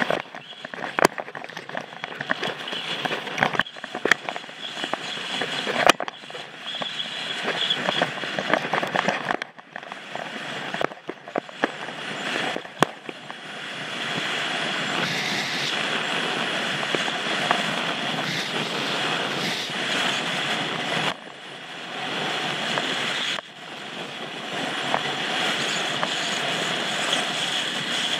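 Skis sliding and carving on snow, a continuous scraping hiss, with many irregular clicks and knocks through the first half. From about halfway it settles into a steadier hiss on the groomed corduroy.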